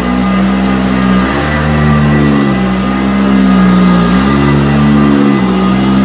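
Motor of a Eureka heavy-duty commercial upright vacuum cleaner (7.0 amp) running loudly as it is pushed back and forth over carpet. Its hum drops and rises in pitch every second or two, as the head sucks down onto the carpet and the motor slows a little under the load.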